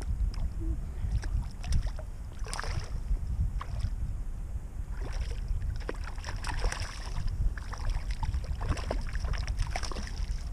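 A hooked trout splashing and thrashing at the water's surface in several bouts: a short one about two and a half seconds in, then longer ones from about five to seven seconds and again near the end. A steady low rumble runs underneath.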